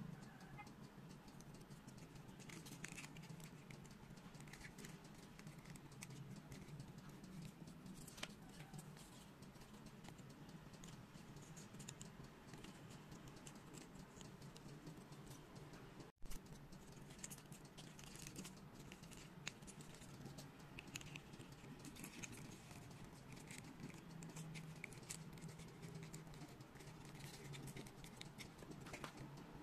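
Faint, irregular clicks and light scratching of foam-board puzzle pieces being handled and pressed together by hand, with a brief gap about halfway through.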